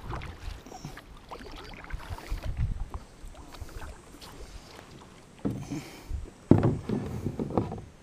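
Kayak paddle strokes dipping and splashing in the water, with a cluster of sharper knocks and splashes against the hull from about five and a half seconds in.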